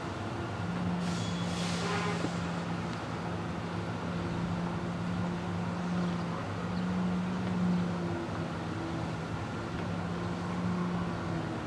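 A steady engine hum with a low tone that wavers slightly in pitch, with a brief hiss about one to two seconds in.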